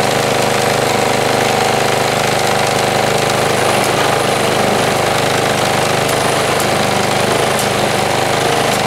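John Deere JS63C walk-behind lawnmower's single-cylinder petrol engine running steadily at a constant speed.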